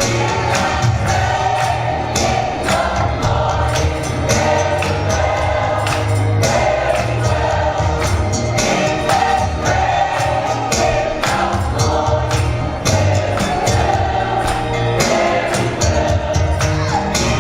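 Gospel choir singing with band accompaniment and a steady beat of tambourine or drum strokes.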